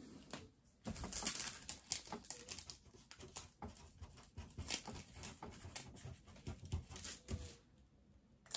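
Plastic packaging of a diamond painting kit being handled and unpacked: quiet, scattered rustles and small clicks that stop about a second before the end.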